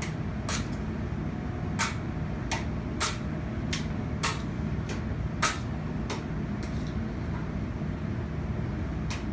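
A grill squeegee worked across a flat-top kitchen grill, giving about a dozen sharp taps and clicks half a second to a second apart, over a steady low mechanical hum.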